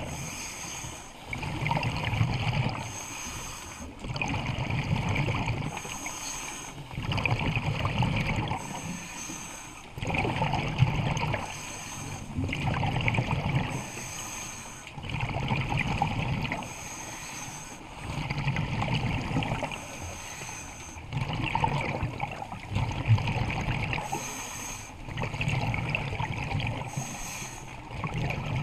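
Scuba diver breathing through a regulator underwater: exhaled bubbles rush out in a low, rumbling gurgle about every two and a half to three seconds, with a short hiss of inhalation between them.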